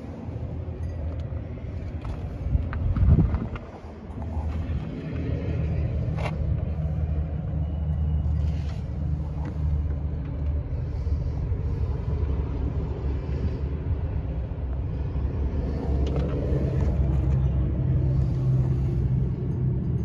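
Steady low machinery rumble with a droning hum, heavier from about sixteen seconds in, and a brief loud buffet about three seconds in.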